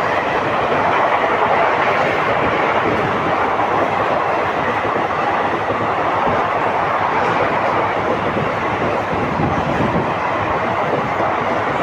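Diesel-hauled passenger train running through a station at speed without stopping: a steady, loud rolling rumble of the coaches going past, with wheels clattering over the rail joints.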